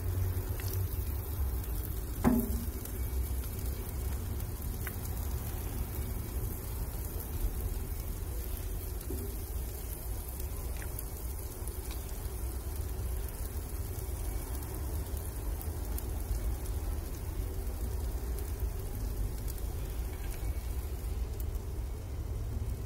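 Marinated chicken pieces sizzling on the hot grate of a charcoal grill, a steady hiss, over a low rumble, with a single knock about two seconds in.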